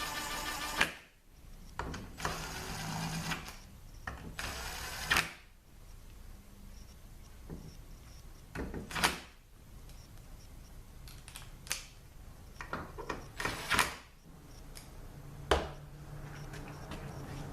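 A small power tool runs in three short bursts over the first five seconds, driving the valve body bolts down, followed by scattered clicks and knocks of tools and parts.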